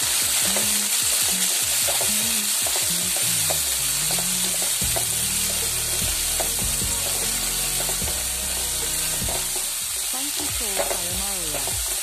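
Freshly added chopped onion, tomato and curry leaves sizzling in hot oil in a pan, stirred with a spatula.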